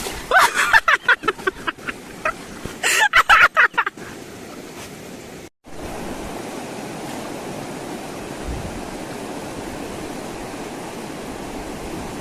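Brief talking, then after an abrupt cut a steady rushing noise of flowing river water.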